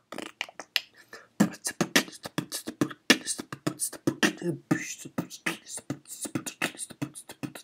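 A man beatboxing: a fast, continuous run of mouth-made drum sounds, several hits a second, starting abruptly.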